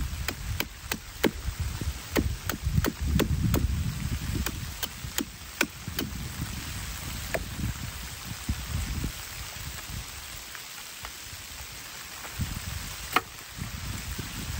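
Machete chopping at a wooden stake: quick sharp chops, two or three a second, for about six seconds, then two single strikes further apart.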